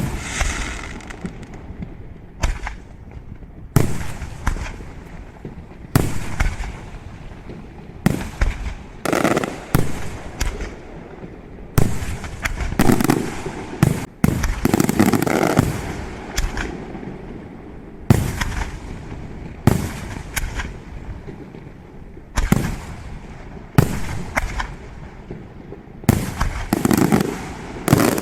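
Fireworks shells bursting overhead one after another, a sharp bang every second or two, each trailing off in a rolling echo, with clusters of bursts close together around the middle and near the end.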